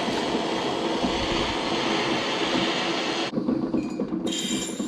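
Jeweler's gas torch flame hissing steadily while annealing a metal piece. The hiss drops away about three seconds in, and a second later a different steady hiss with a thin high whine takes its place.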